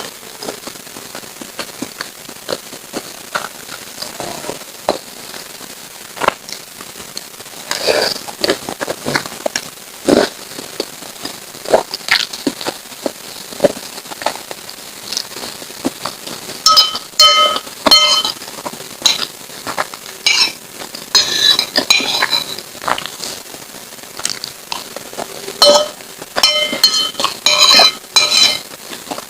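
A metal spoon clinking and scraping against a bowl of soupy lontong sayur, between soft wet eating and mouth sounds. Quick runs of ringing clinks come a little past halfway and again near the end.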